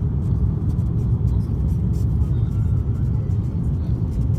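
Steady low rumble of engine and airflow noise inside the cabin of an Airbus A330-900neo on final approach with its flaps extended, from its Rolls-Royce Trent 7000 engines and the air rushing past the fuselage.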